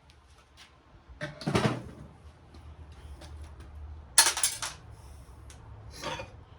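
Metal parts of a radial arm saw being handled and set down during disassembly: three clanks and clatters, the loudest and sharpest about four seconds in.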